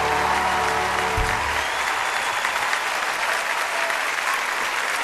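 A studio audience applauding and cheering. Under it, the waltz music's last held chord ends with a low thud about a second in.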